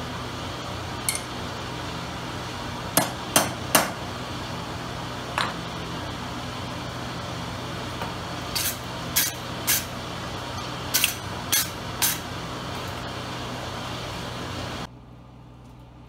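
Sharp metal clanks and ringing strikes on a steel anvil, about a dozen, some in quick runs of three or four, over a steady machine hum. The hum drops off suddenly near the end.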